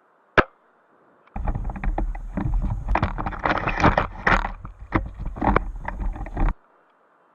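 A single sharp snap of an airsoft sniper rifle firing. About a second later comes roughly five seconds of loud rustling, scraping and bumping right at the microphone, which cuts off suddenly.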